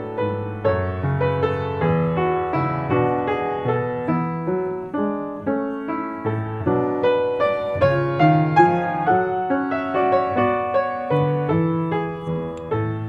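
Upright piano played solo: a flowing piece with a steady stream of notes, several a second, over lower bass notes.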